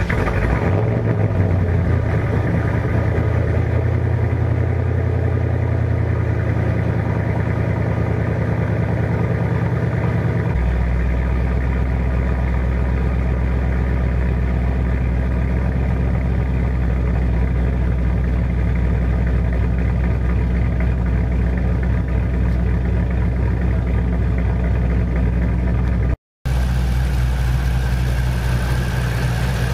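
Supercharged 2006 Ford Mustang GT's 4.6-litre three-valve V8, with long-tube headers and aftermarket camshafts, idling right after a cold start, having sat for two weeks. The fast cold idle drops to a lower, steady idle about ten seconds in, and there is a momentary gap in the sound near the end.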